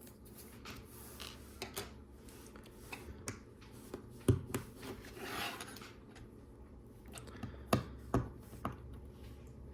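LEGO Technic plastic parts being handled and set down: scattered clicks and knocks, the sharpest about four seconds in and twice near the end, with a brief rustle around the middle.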